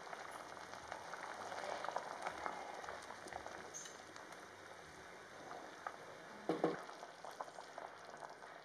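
Sambar boiling in a pan, bubbling and popping steadily, while a wooden spatula stirs it. A louder knock about six and a half seconds in.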